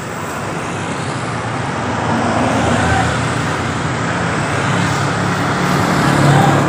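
Road traffic passing close by, a steady rush of engines and tyres that grows louder as vehicles go by near the end.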